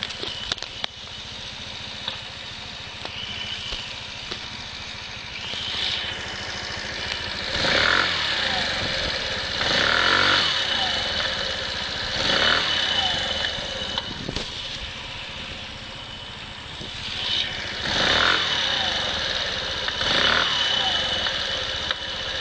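A 125 cc motorcycle engine runs at a standstill with a steady high whine over its note. In the second half the throttle is blipped in short revs about every two seconds, each dropping back to idle. The engine is being run to show an abnormal noise it makes.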